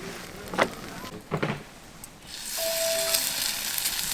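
Two sharp knocks, then about halfway through a steady sizzle starts suddenly: food frying in a hot pan.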